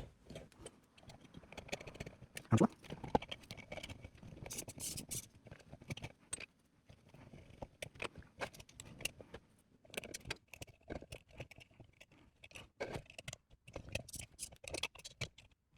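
Hands assembling 3D-printed plastic robot-arm parts: irregular small clicks, taps and scrapes of plastic and small hardware being handled and fitted together, with one louder knock about two and a half seconds in.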